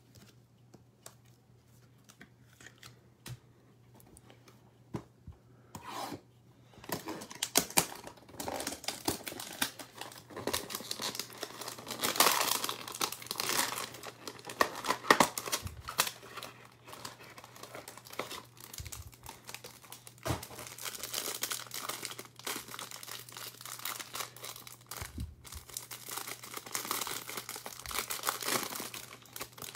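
Trading-card hanger box being torn open and the cards' plastic wrapper crinkling and tearing, starting about seven seconds in as irregular crackling that continues to the end.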